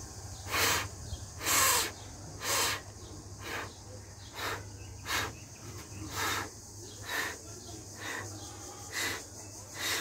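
Rhythmic swishing noise, about one short stroke a second, over a low steady hum.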